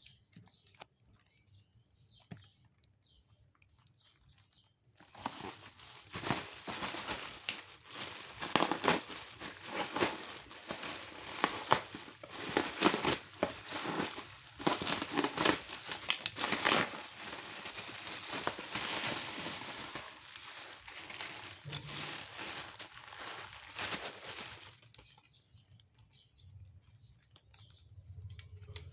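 Packaging being handled and unwrapped: dense crinkling and rustling with many small crackles, starting about five seconds in and stopping a few seconds before the end.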